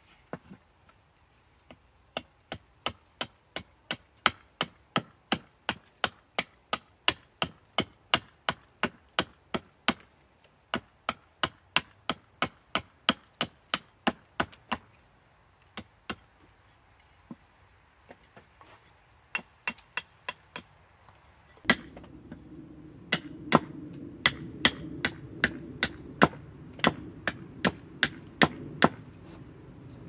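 Carving axe chopping a banksia wood spoon blank on a chopping stump: a long run of quick, sharp strikes about three a second, a few scattered blows with short pauses, then a second run of strikes. About two-thirds of the way through, a steady low hum sets in underneath.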